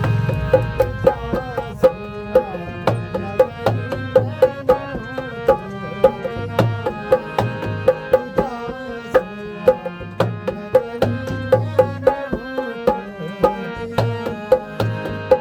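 Instrumental music: a hand drum playing a quick, steady beat under a held melody line that moves between notes.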